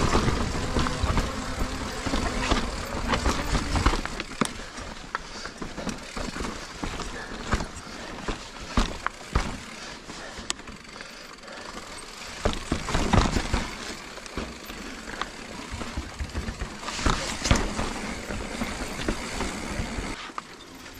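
Giant Reign full-suspension mountain bike rolling over sandstone slickrock: steady tyre noise on rock with frequent sharp rattles and knocks from the chain and frame over ledges, heavier and rumbling in the first few seconds.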